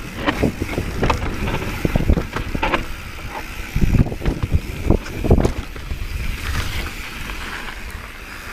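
Mountain bike ridden fast over bare rock: a run of knocks and thumps as the wheels and suspension hit the rock, the heaviest about two, four and five seconds in, over a steady rumble of tyre and wind noise on the microphone.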